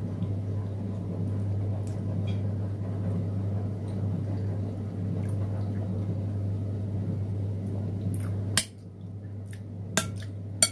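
A person chewing food with the mouth closed, soft wet eating sounds over a steady low hum. The hum cuts off with a sharp click near the end, and two more sharp clicks follow.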